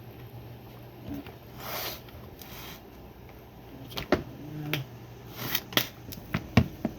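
Handling noise from a firearm being put away: a short rustle, then a string of sharp clicks and knocks, about seven, from about four seconds in, the loudest near the end.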